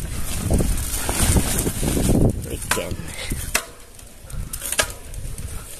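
Bicycle jolting over a rough road: a low rumble with rattling, then three sharp knocks in the second half.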